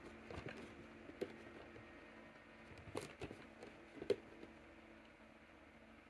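Faint handling noise of a clear plastic protector case around a boxed vinyl figure being turned over in the hand: a few soft clicks and taps, about a second in, around three seconds and just after four seconds, over a low room hum.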